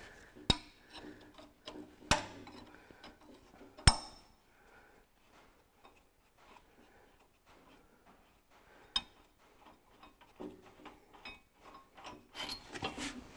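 Hand tools working the bolts out of a Ferguson TE20's hydraulic lift cover: a few sharp metallic clicks a second or two apart, a near-silent pause, then a run of small ticks and rasping near the end.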